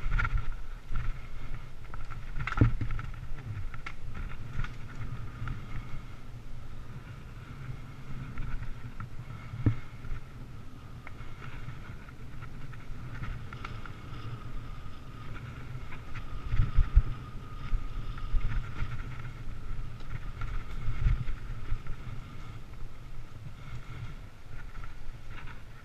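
Mountain bike riding over a dirt trail: a steady low rumble with knocks and jolts from bumps, the strongest about 17 seconds in, and a steady high-pitched whine running through.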